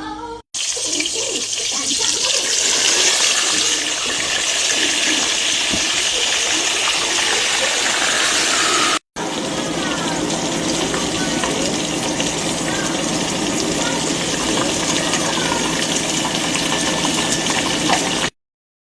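Hot oil sizzling steadily as food deep-fries, heard in two stretches with a brief break about halfway and a sudden stop near the end.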